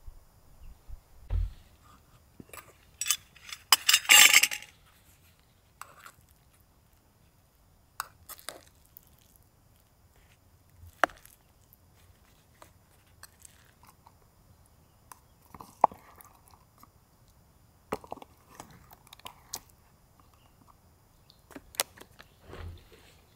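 Handling sounds of small objects: scattered clicks and clinks, with one loud burst of crunching noise about four seconds in.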